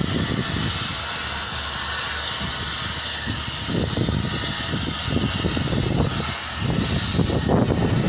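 KCP concrete pump running: a steady hiss over a low machine hum, with a run of irregular low knocks starting about halfway through.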